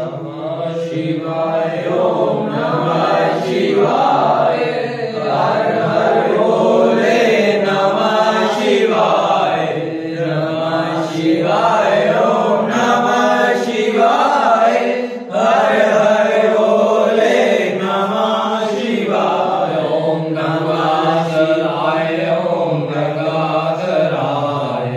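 A small group of voices chanting a Hindu devotional bhajan together in a steady, continuous unison.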